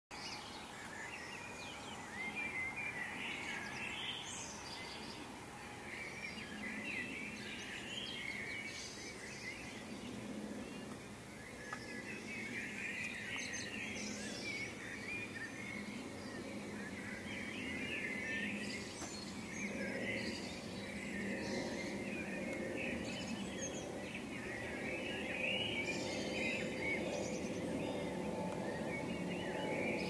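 Dawn chorus of many songbirds singing at once, with overlapping chirps, trills and song phrases throughout. A low, steady rumble runs underneath and grows slightly louder in the second half.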